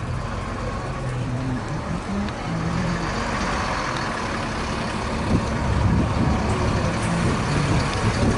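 Heavy vehicle's engine running, a steady low rumble that grows a little louder about three seconds in.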